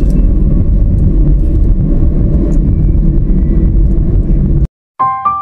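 Steady low rumble of a car driving, heard from inside the cabin: engine and tyre noise. It cuts off abruptly near the end, and after a brief silence piano-like keyboard music begins.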